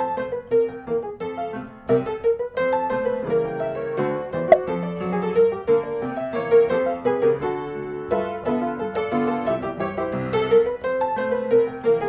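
Background piano music: a light tune of quick, evenly paced notes.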